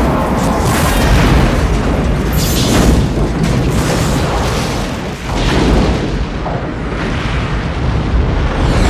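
Science-fiction film sound effects of a starship exploding: a long, continuous explosion with a deep low rumble and several louder booms. Film score music plays underneath. The sound dips briefly about five seconds in, then swells again.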